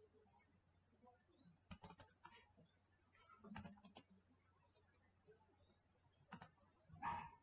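Faint, scattered clicks of a computer mouse and keyboard, coming in small clusters, with one louder brief sound near the end.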